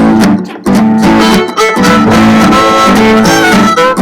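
Upbeat instrumental dance music led by guitar, with a steady rhythmic pulse.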